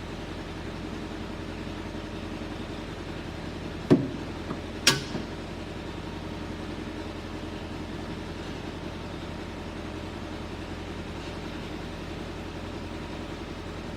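Steady low mechanical hum, broken a few seconds in by two sharp knocks about a second apart, typical of tool or metal-part handling during an oil change.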